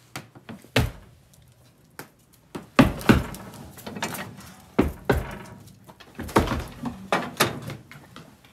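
Sharp metal knocks and clanks from an old enamelled cast-iron cookstove as its doors and latches are handled, loudest about three seconds in and again near six and a half seconds.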